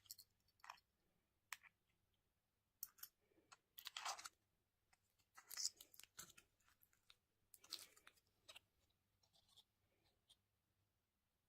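Plastic candy and toy packaging being opened and handled: a string of short, soft crinkles and clicks at irregular intervals, stopping about a second before the end.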